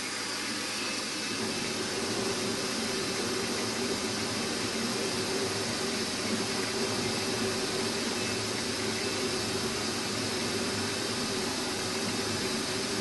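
Milling machine's spindle running steadily, driving a small twist drill slowly down through a steel shaft: an even machine hum with a constant hiss.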